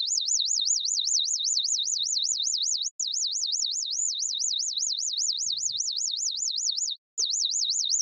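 ZynAddSubFX synthesizer patch: noise through a resonant bandpass filter that a fast LFO sweeps up and down, giving a high pitch that wavers about four times a second. Frequency randomness is switched on for the LFO but changes the sweeps very little. The sound cuts out briefly twice.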